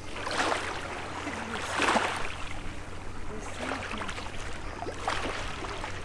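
Small waves of the calm Thermaic Gulf in the Aegean Sea lapping in four splashes, the strongest about two seconds in.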